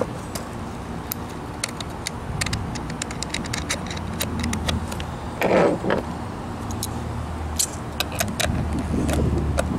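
Small sharp metal clicks and clinks of skateboard truck parts (bushing, cup washer and kingpin nut) being handled and fitted back onto the kingpin, over a steady low rumble, with a brief louder rush about halfway.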